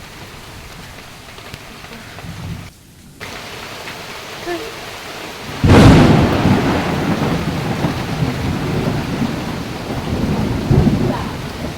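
Steady rain, with a sudden loud thunderclap about halfway through that rumbles on for several seconds.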